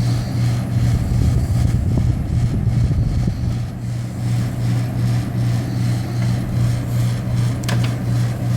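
GE Fashionaire 8,000 BTU window air conditioner running, its compressor giving a strong steady hum with vibration over the fan's rush. The compressor doesn't sound right, which the owner thinks could just be vibration.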